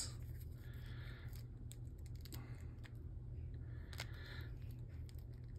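Faint, scattered clicks of a Beyblade's plastic and metal parts being handled and locked together, over a low steady hum.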